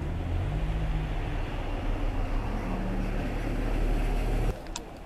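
A steady, low engine rumble with a pitched hum, like a motor vehicle running close by. It cuts off suddenly about four and a half seconds in, followed by a few light clicks.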